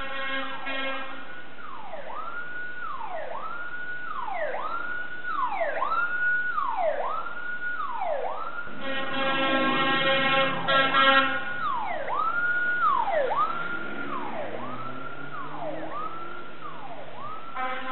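Fire engine siren sweeping up and down about once a second as the truck passes, sounding blasts of its horn briefly at the start, for about two seconds in the middle, and again near the end. The loudest stretch is in the middle, with engine rumble under the horn.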